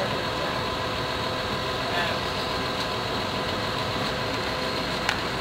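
Heavy machinery engine running steadily, an even drone with a faint steady hum, typical of a crane working at a module lift.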